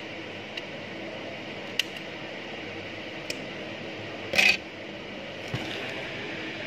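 Light clicks and taps from hands handling a mobile phone's bare circuit board and plastic housing parts, a few single clicks spread through, with one louder short crackle about four seconds in, over a steady background hiss.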